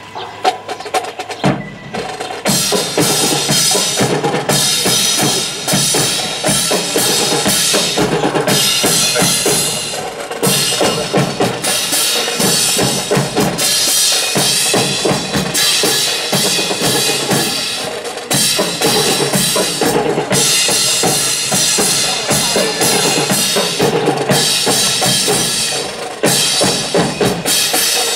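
Marching snare and bass drums playing a steady drill cadence, starting about a second and a half in, with snare rolls.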